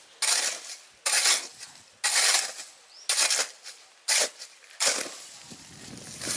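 A short-handled digging hoe striking and scraping into dry, stony soil, about one stroke a second, six strokes in all, digging out a pit.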